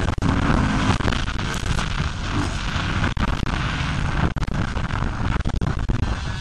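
Four-stroke motocross bike engine running hard, heard from a rider-mounted camera, with heavy wind rumble on the microphone and the sound cutting out for an instant several times.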